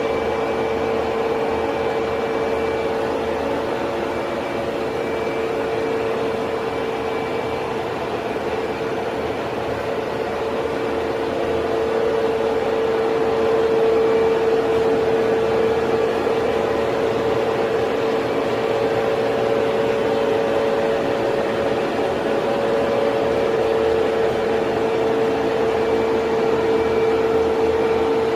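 Gear hobbing machine running: a steady machine hum with one strong steady tone and a faint whir, growing a little louder a bit before halfway.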